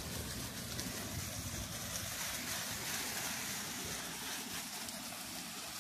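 Garden hose spraying water onto a leafy shrub: a steady rushing spray of water on the leaves.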